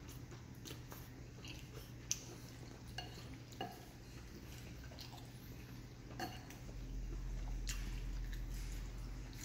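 A fork clinking and scraping in a glass bowl of noodle soup, in scattered short clinks, with the sounds of noodles being slurped and chewed in between. A steady low hum runs underneath and grows louder about seven seconds in.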